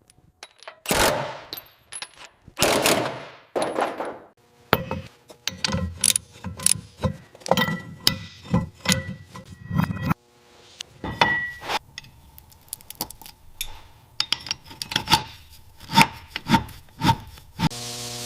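Hand-tool work in a car restoration workshop: four long rasping strokes, then a busy run of sharp metallic clinks, taps and knocks, some of them ringing briefly.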